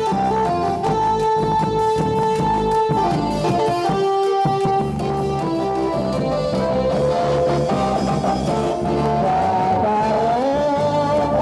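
Loud procession music played through horn loudspeakers: a held melodic lead over a steady bass beat.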